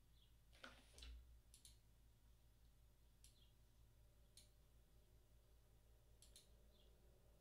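Near silence: faint room tone with a low steady hum, broken by a handful of faint computer mouse clicks, two close together about a second in and the rest scattered singly.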